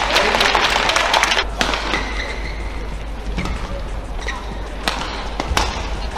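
Arena crowd applauding and cheering, cut off abruptly about a second and a half in. Then a quieter hall, with a few sharp racket strikes on a shuttlecock and short squeaks of shoes on the court.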